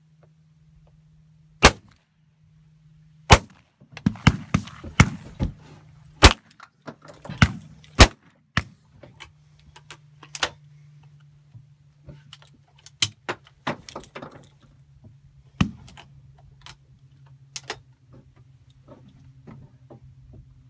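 Shotgun shots at a grouse shoot: two loud, sharp reports a couple of seconds apart, then a quick flurry of several shots, then scattered, mostly fainter shots.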